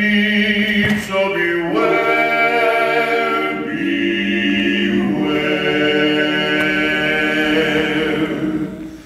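Male barbershop quartet singing a cappella in four-part harmony, holding long chords that shift to a new chord about two seconds in and again about five seconds in.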